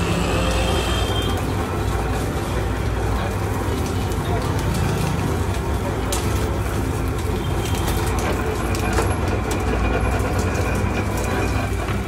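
Belt-driven sugarcane crusher running steadily, its ridged steel rollers pressing cane stalks, with a steady low hum and scattered sharp cracks.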